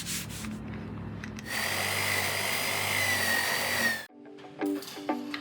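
A power tool runs with a steady low hum, then goes into a loud, hissing grind with a thin high whine for about two and a half seconds, which cuts off suddenly about four seconds in. Music with plucked-sounding notes starts near the end.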